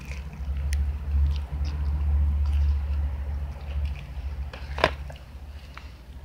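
Someone chewing a crunchy tostada close to the microphone, with scattered small crunches and one sharper click about five seconds in. A low rumble underneath swells and then fades.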